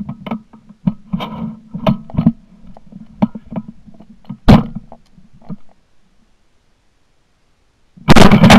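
Shotgun-mounted shot camera's microphone: a string of clicks and knocks over a low steady hum as the gun is swung, a single sharp crack about halfway through, then a short quiet and a loud shotgun blast at doves near the end.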